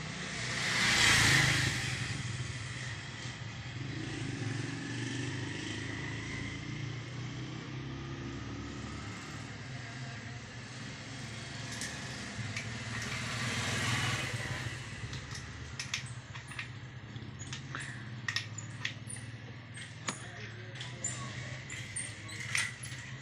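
Motor vehicles passing, two swells that rise and fade, over a steady low hum; in the second half a run of sharp clicks and taps.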